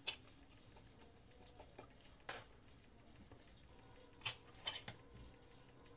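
Metal spoon scooping tuna out of a tin can, tapping against the can and the glass bowl: a few short clicks, one a little over two seconds in and a small cluster around four to five seconds.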